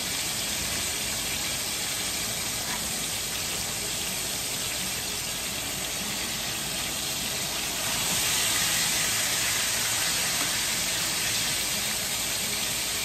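Flour-coated cube steaks frying in hot grease in a stainless steel skillet: a steady sizzle that grows louder about eight seconds in.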